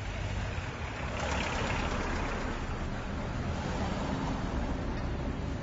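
Street traffic: a vehicle passes by, its noise swelling about a second in and fading away by about four seconds, over a steady low traffic rumble.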